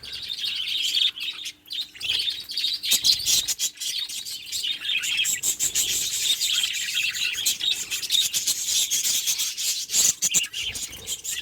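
Budgerigar chatter: a steady stream of high chirps, warbles and quick clicks.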